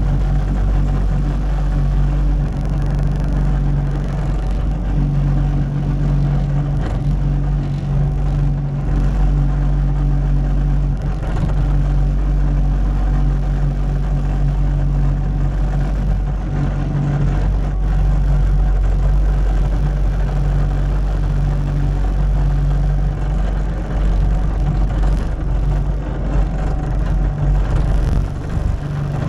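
Diesel engine of a Cat 289D3 compact track loader running steadily, a continuous low drone.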